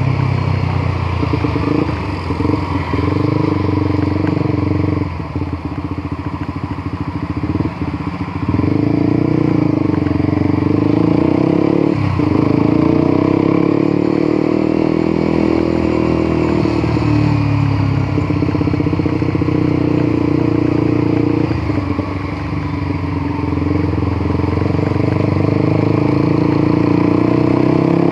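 Honda CBR150R's single-cylinder engine under way, its pitch climbing and falling again and again with throttle and gear changes, with two dips in level, one about a third of the way in and one near the end.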